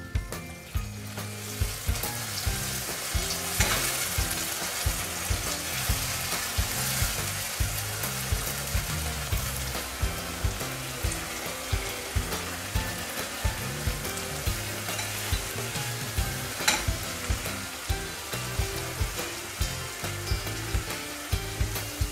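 Chopped tomatoes sizzling and frying in hot oil in a nonstick frying pan, with a spatula stirring through the sauce, over background music with a steady beat. A single sharp tap about three-quarters of the way through.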